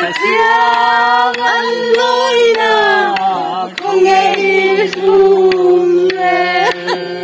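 A voice singing long, held, bending notes in a chant-like melody over a steady low drone, with short sharp percussive taps here and there.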